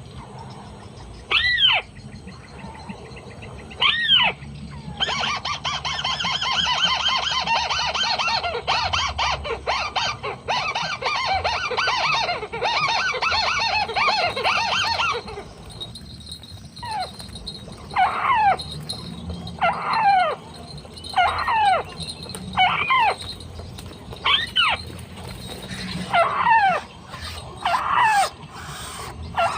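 White-browed crake calls. Sharp notes slide downward, repeated every second or two, with a long dense chattering run from about five to fifteen seconds in.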